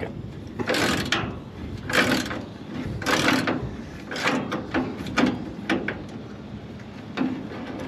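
Hand ratchet wrench clicking in short strokes, roughly one a second, backing a rusty bolt out of an old car's front end.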